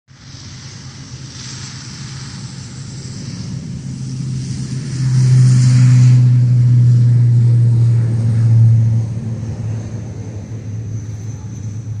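ATR 72 twin-turboprop airliner at takeoff power on its takeoff roll: a steady low propeller drone with a hiss over it, swelling about five seconds in and easing off after about nine seconds.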